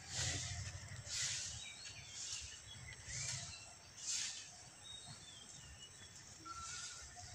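Short rustling scrapes in soil and leaves, about one a second for the first four seconds, then fewer. Small birds chirp in the background throughout.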